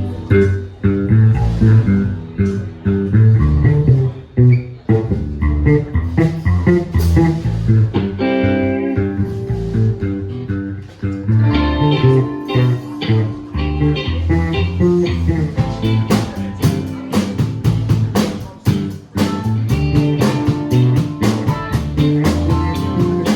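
Live band playing an instrumental passage on guitar and bass guitar, with regular sharp drum strokes joining about two-thirds of the way in.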